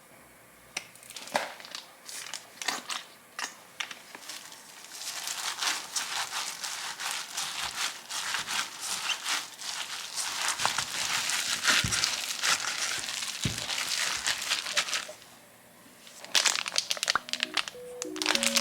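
Crinkling and crackling of handled material such as wrapping. It starts as a few scattered clicks, then becomes dense and continuous for about ten seconds and stops abruptly, and a few more crackles follow near the end.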